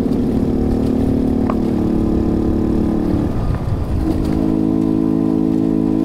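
Honda Pop motorcycle's small single-cylinder engine pulling steadily uphill on a dirt road. A little past halfway the steady note breaks up briefly, then settles again.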